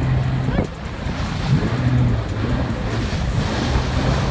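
Jet ski engine running as it cruises, its pitch rising and falling a few times with the throttle, over rushing water and wind buffeting the microphone.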